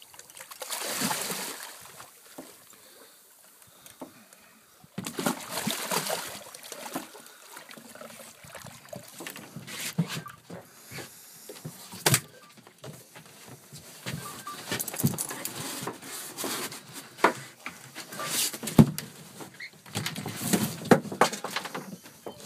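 Water splashing as a tope shark is hauled out of the sea over a boat's side, followed by scattered sharp knocks and thumps as the shark is handled and moves about on the boat's deck.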